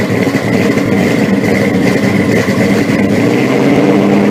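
Car engine running at a steady idle.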